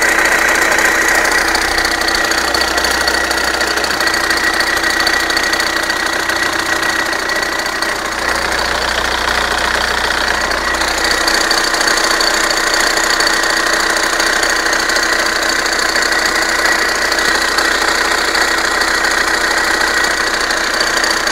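Car engine running steadily at idle with a steady high-pitched whine over it: an unexplained noise that does not come from the cooling fan, which is off.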